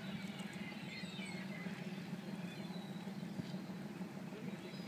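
A boat engine runs steadily as a low drone, with short high bird calls over it in the first second or so.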